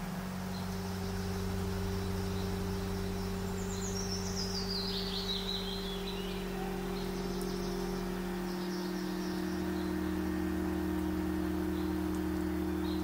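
Fantasy ambience: a sustained low drone of several held tones, its lowest notes shifting about nine seconds in. A bird call falls in pitch about four seconds in, with faint high chirps later.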